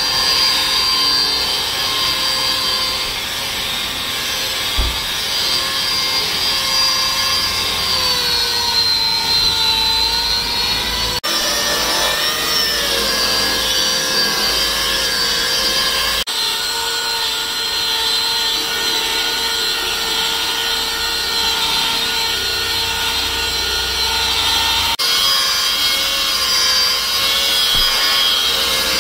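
Electric rotary polisher with a foam pad running at speed, buffing car paint: a steady high whine whose pitch sags briefly a couple of times.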